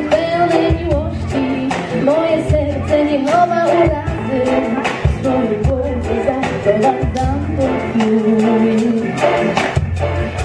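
A woman singing a pop song over a backing track with a steady beat, amplified through stage speakers.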